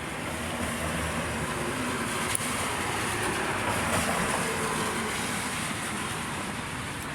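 A vehicle passing on a wet road, its tyre and road noise hissing: it swells to a peak around the middle and then slowly fades. A single sharp click sounds near the middle.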